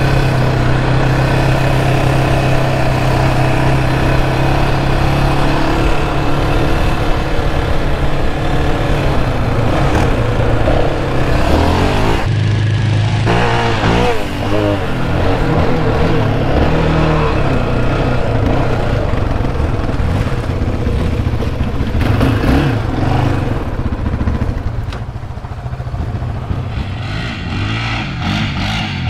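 Yamaha Raptor 700R quad's single-cylinder four-stroke engine with an aftermarket Monster exhaust, heard from the rider's seat while riding on sand: a steady run at first, then revving up and down as the throttle is worked about halfway through. Near the end the engine sound is quieter, as from a quad riding some distance away.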